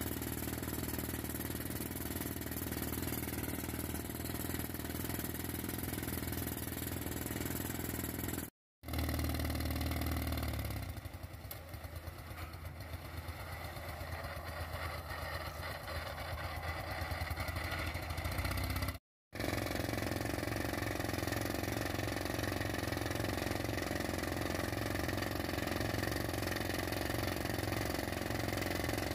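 Crawler rock drill running while drilling blast holes in rock: a steady mechanical din of engine and drill. It breaks off twice at cuts and is quieter for several seconds in the middle.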